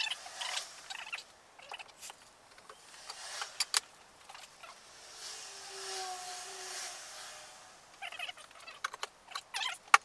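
Light clicks, taps and knocks of wood and metal being handled on a workbench as drilled pallet boards are worked onto threaded steel rods. The taps bunch together near the start and again near the end, with a soft swell of hiss a few seconds in.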